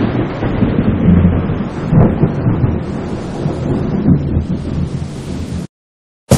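Low rolling rumble of thunder with a rain-like hiss, loudest at first and swelling unevenly, which cuts off abruptly near the end. A short sharp sound follows right at the very end.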